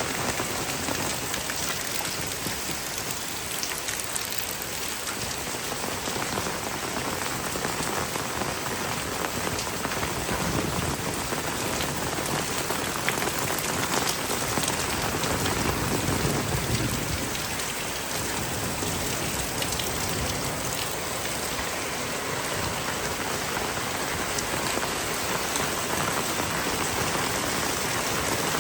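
Heavy rain falling steadily, a dense hiss of drops with fine patters on surfaces.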